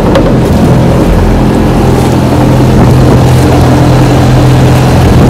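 Engine of a motorised outrigger boat (bangka) running steadily, with a low hum that settles into a steady tone about halfway through.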